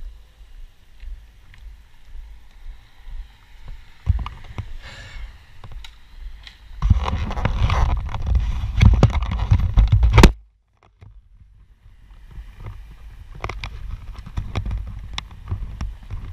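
Wind and movement noise rumbling on a body-worn camera's microphone while the wearer walks along the roadside. It swells loud about seven seconds in, cuts out abruptly a little after ten seconds, and then picks up again.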